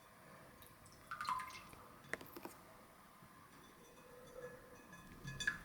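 A few faint water drips and small splashes from a cockatiel's bath dish, scattered through mostly quiet.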